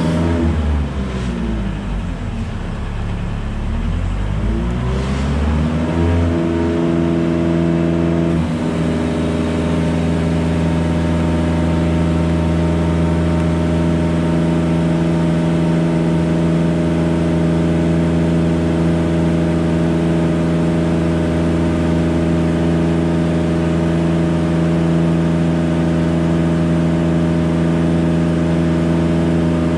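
Engine of a Genie S65 telescopic boom lift running under hydraulic load as the boom is raised and extended. Its speed sags for a few seconds, climbs back, then holds a steady high speed.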